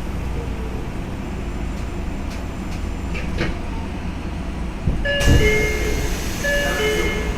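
Tokyo Metro 07 series subway train heard from inside the car as it comes to a stop: a low steady rumble with a few clicks. About five seconds in, the doors open with a thud and a rush of air, and the door chime plays a short pattern of tones twice.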